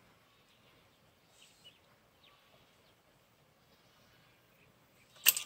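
Quiet open-air background with a few faint high bird chirps, then near the end a sudden cluster of sharp clicks and knocks as the fishing rod is jerked up to strike a bite.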